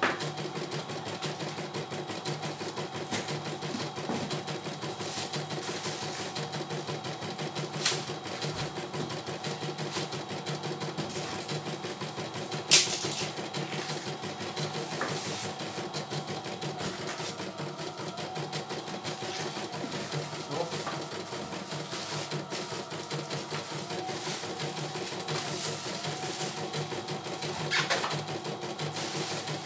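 CNY E900 computerized embroidery machine stitching a design: a fast, steady run of needle strokes, with a few sharper clicks now and then, the loudest about a dozen seconds in.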